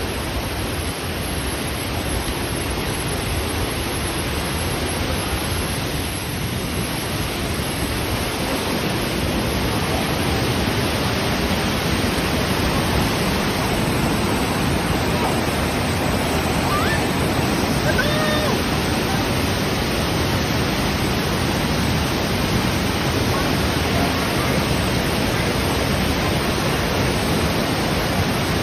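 Flash-flood water rushing through Mae Sa Waterfall: a steady, dense rush of water that grows a little louder partway through. Faint voices sound about two-thirds of the way in.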